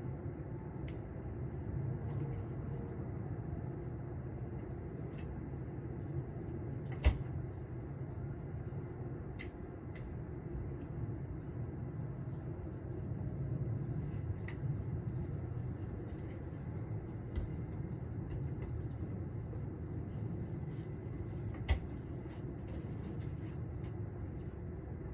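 Steady low rumble of distant traffic, with two sharp clicks, one about seven seconds in and one near the end.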